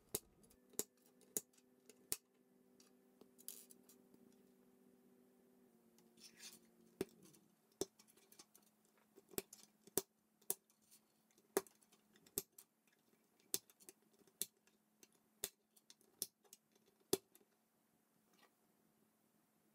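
Plastic K'NEX rods snapping into connectors by hand: a string of sharp, short clicks at irregular intervals, under a faint steady hum.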